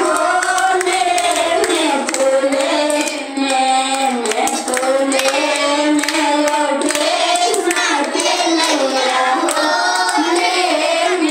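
A woman singing a devotional chant into a microphone, with children clapping along in rhythm and voices joining in.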